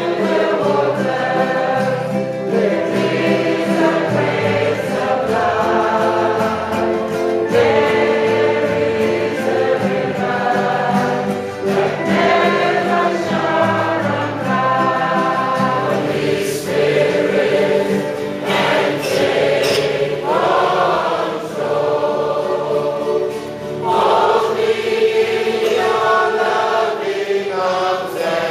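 A church choir singing a hymn.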